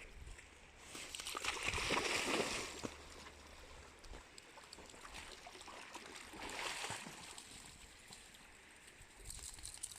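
Water splashing and gurgling in two bouts, a longer one about a second in and a shorter one near seven seconds.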